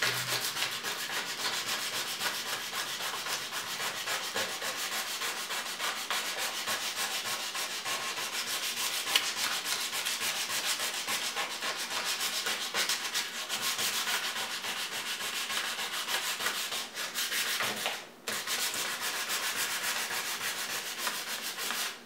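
Hand sanding with a sheet of 240-grit sandpaper: continuous rapid back-and-forth scraping strokes over the painted microwave door, scuffing off the old red paint to prepare it for spray paint. The strokes stop briefly about eighteen seconds in, then resume.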